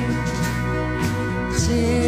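Music with sustained notes and a bass line that changes note about a second and a half in.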